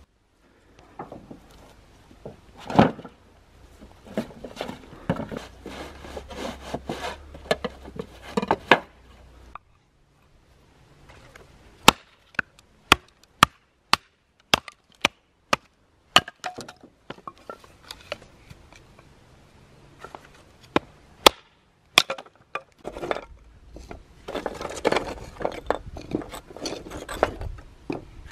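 Wooden boards being handled and split into kindling with a hatchet. First comes an irregular clatter and knocking of wood with one loud thump. Then, after a short pause, sharp separate cracks of the hatchet biting into the board, about two a second at first and then more spaced out, and finally a dense clatter of thin sticks being broken and stacked on a metal sheet.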